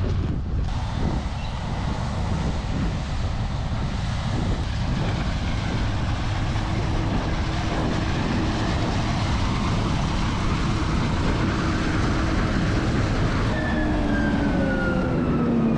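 Farm machinery engines running: a steady low engine rumble under a rushing mechanical noise that builds through the first half. Near the end several engine tones slide downward in pitch.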